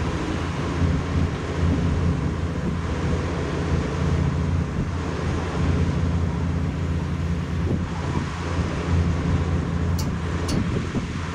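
Peterbilt semi tractor's diesel engine running steadily as the truck rocks the trailer back and forth to slide its tandem axles, with wind buffeting the microphone. Two sharp clicks come about ten seconds in.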